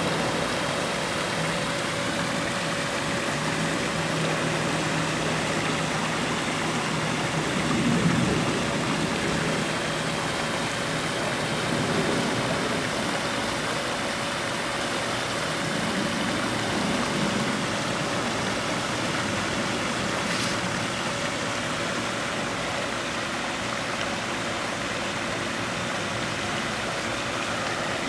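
Pool waterfall feature pouring a sheet of water into a swimming pool: a steady rushing splash, with a steady hum underneath and a few soft low swells.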